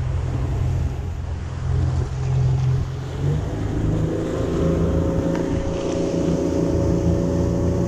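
Boat engines running under throttle, with rushing water from the wake and wind. About three seconds in the engine note rises and then holds steady at higher revs as the boat powers forward to pull its anchor up with an anchor buoy.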